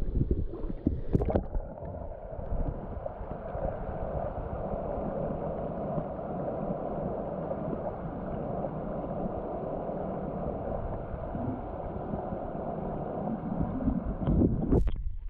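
Mountain stream water heard with the camera held underwater: a steady, muffled rush of flowing water. Knocks and splashes about a second in and again near the end.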